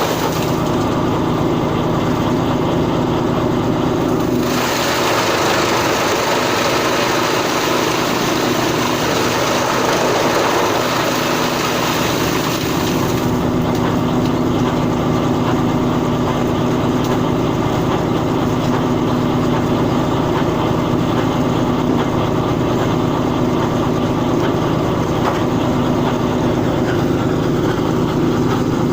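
Automatic corn straw silage baler running steadily, a constant machine hum with a steady low pitch.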